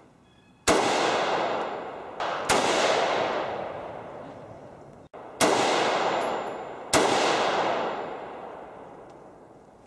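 Four loud handgun shots, spaced about one and a half to three seconds apart, each trailing off in a long echo.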